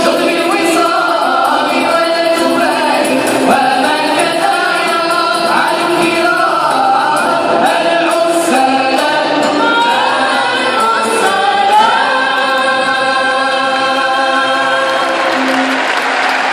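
Moroccan Andalusian orchestra and chorus, men's and women's voices singing together in unison over oud, bowed strings and double bass. Applause starts to break in near the end as the song closes.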